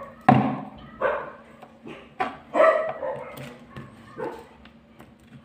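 A dog barking several times in short barks, louder in the first few seconds and fainter toward the end.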